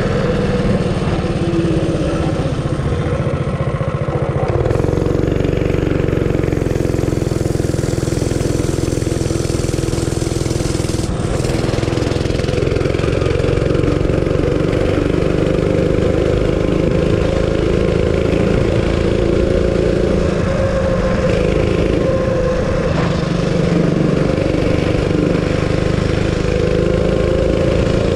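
Realtree RT200 mini bike's small single-cylinder engine, fitted with a custom exhaust, running steadily under throttle while riding. It gets a little louder and brighter about five seconds in.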